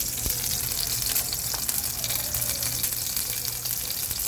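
Chicken fat frying in oil in a pot: a steady sizzle, with a few faint clicks.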